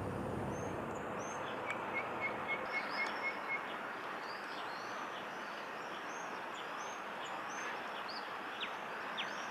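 Small birds chirping and calling over a steady background hiss, with a quick even run of about seven chirps between about two and three and a half seconds in.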